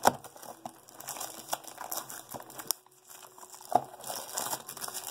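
Funko Mystery Minis blind-box packaging being handled: crinkling and crackling of wrapping with scattered sharp clicks, a brief lull a little past the middle, then a sharp click.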